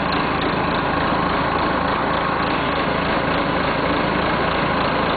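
1976 Massey Ferguson 50D backhoe's engine idling steadily.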